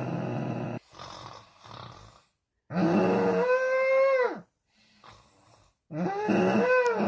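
Odd-sounding snoring: loud snores about every three seconds, each starting as a rough rattle and turning into a wavering, moaning tone that falls away at the end, with softer breaths in between.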